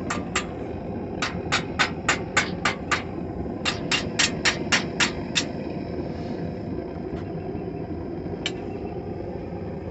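Hammer blows forging a small steel hairpin piece on an anvil: two quick runs of about eight strikes each, roughly five a second with a short pause between, then a couple of single taps later on. A steady low rumble runs underneath.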